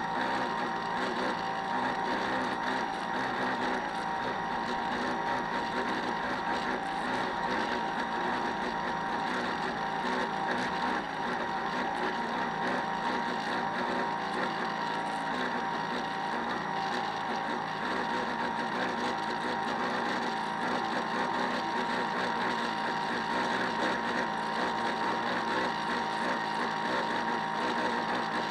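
Small electric motor of a radio-controlled model boat running steadily at constant speed, a continuous whine with a clear tone near the middle of the range.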